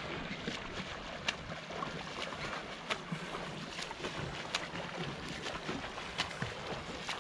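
Paddling and swimming on a lake: small, sharp splashes about once a second over the steady lapping hiss of the water.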